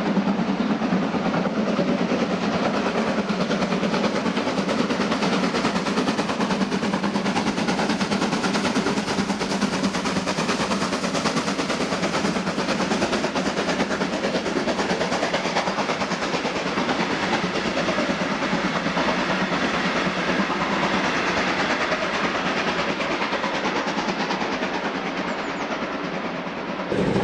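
A steam train hauled by locomotives 41 1144-9 and 1066 passes under heavy steam, giving a loud, steady run of exhaust and running noise. It dips slightly near the end.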